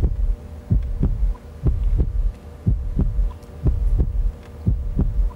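Quiz-show countdown sound effect: a low, heartbeat-like double thump about once a second over a steady hum, ticking off the seconds of the ten-second answer clock.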